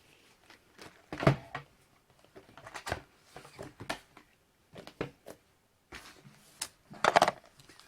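Cardboard trading-card hobby box and its card packs being handled and opened: a string of scattered clicks and knocks, one sharp knock about a second in and a louder cluster of clicks near the end.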